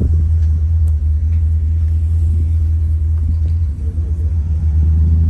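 Steady low rumble of a car being driven, with no speech over it.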